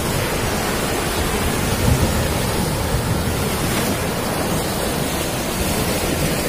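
Sea surf breaking and washing over the boulders of a rock sea wall: a steady rushing noise with no let-up.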